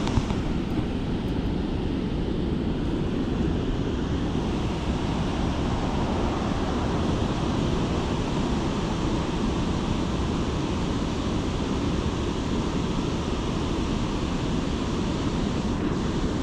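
Steady wind buffeting the microphone, a low, even rushing rumble with no let-up.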